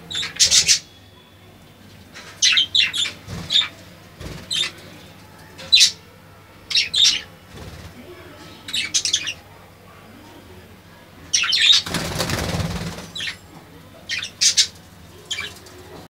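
Budgerigars chirping and chattering in short, sharp bursts at irregular intervals. About twelve seconds in, a one-second rush of noise stands out as the loudest thing.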